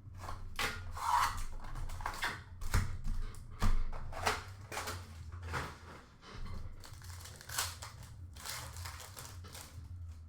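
Foil hockey card packs being torn open and the cards handled: a run of short rustling, crinkling and tearing sounds.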